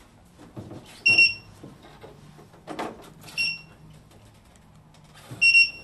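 Three short, high electronic beeps about two seconds apart from an electric unicycle's built-in beeper, mixed with knocks and clunks as the heavy wheels are handled and set down on a wooden shelf.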